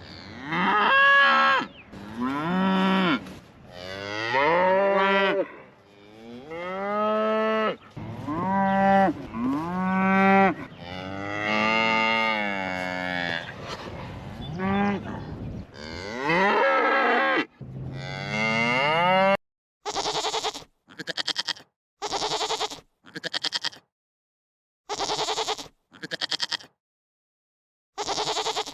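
Cattle mooing over and over, a string of drawn-out pitched calls that rise and fall. About two-thirds in they give way to a run of short, quavering bleats about a second apart.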